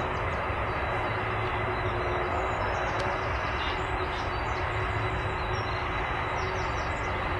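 Steady rumble of jet aircraft engines.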